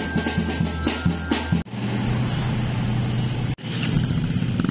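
A short stretch of music, then an abrupt cut about a second and a half in to street traffic: a steady hum of idling car and motorcycle engines with road noise.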